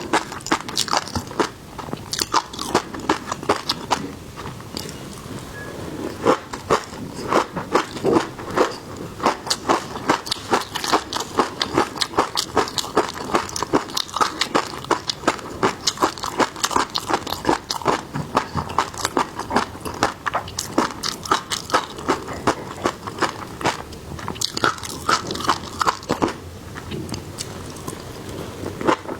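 Close-miked eating: crunching bites and chewing, a dense run of crisp clicks with two short lulls.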